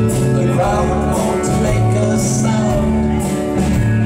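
Alt-country band playing live, with a male voice singing over bass, guitar and drums, heard from within the crowd.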